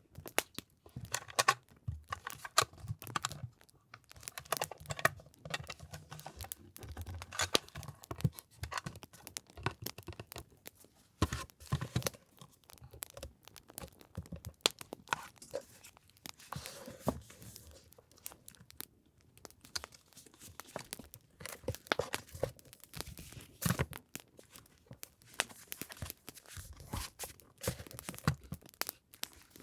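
Close-up crinkling, rustling and tearing of paper and plastic packaging being handled, with many irregular sharp crackles.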